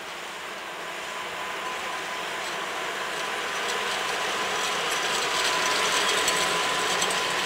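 A six-axle ET22 electric freight locomotive passing close by at low speed, growing louder as it nears: a steady whine with rapid mechanical clicking from its wheels and running gear from about four seconds in.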